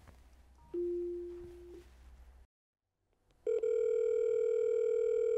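Akuvox video intercom call tones: a single beep about a second long that fades out as the call is placed from the X912 door station, then a steady ringing tone for about two seconds that stops sharply near the end, signalling the incoming call on the X933 indoor monitor.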